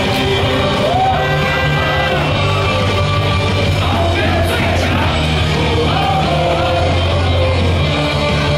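Rock-style cheer music over a baseball stadium's loudspeakers, with a crowd yelling and singing along to it.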